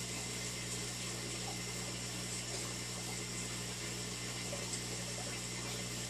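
Aquarium filtration running: a steady wash of circulating water over a constant low hum from the pump.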